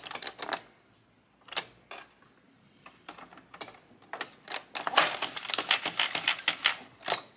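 Addi King circular knitting machine being turned by its crank, its plastic needles clicking: a few scattered clicks at first, then a fast run of clattering clicks from about four and a half to seven seconds in.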